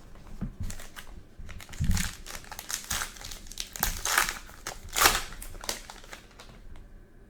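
Plastic wrapper of a pack of trading cards being crinkled and torn open: a run of crackling rustles, loudest about five seconds in, with a soft thump about two seconds in.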